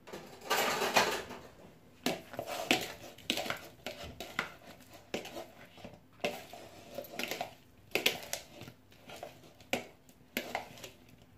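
A metal spoon stirring cubed mozzarella with herbs and seasoning in a bowl, with irregular clicks and scrapes as it knocks against the bowl's sides.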